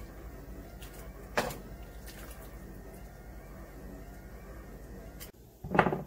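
Kitchen sounds at a stove where a pot is steaming under a stainless mesh strainer of blanched greens: a steady low hum with a single sharp clink about a second and a half in. The hum cuts off near the end, and a louder knock follows.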